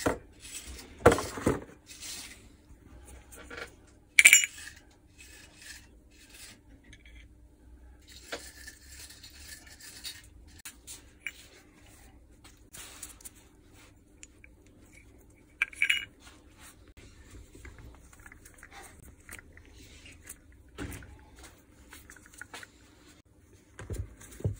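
Scattered clinks, taps and knocks of metal parts and tools being handled on a workbench during reassembly of an electric polisher's armature and housing, over a faint steady hum. The sharpest clinks come about four seconds in and again near sixteen seconds.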